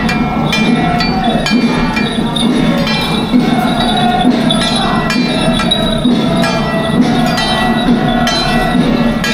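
Temple-festival troupe music: a sustained melody over a steady beat of ringing metal percussion, such as gongs and cymbals.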